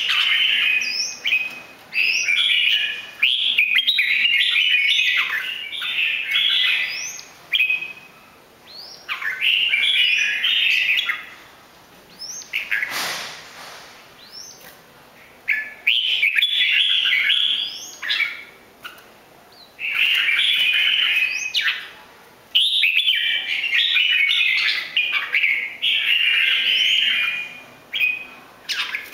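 Caged red-whiskered bulbul (chào mào) singing: bursts of rapid, chattering song phrases a few seconds long, separated by short pauses.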